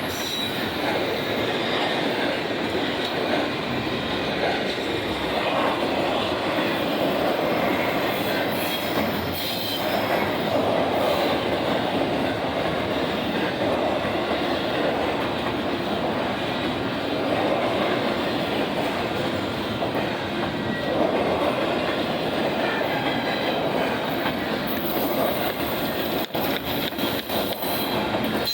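Union Pacific intermodal freight cars rolling past, a steady loud rumble of wheels on rail with clickety-clack. A few sharp clicks come near the end.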